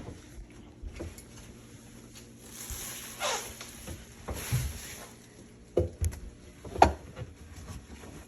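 Plastic sink drain parts handled under a kitchen sink after clearing a clogged P-trap: two short swishing sounds, then three sharp knocks and clacks of the pipe pieces about two-thirds of the way through.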